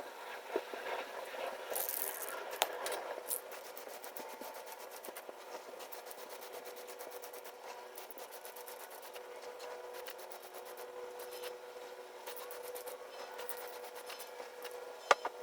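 Aerosol can of acrylic primer being shaken and sprayed in short hissing bursts, with faint rattling and clicks, over a steady hum.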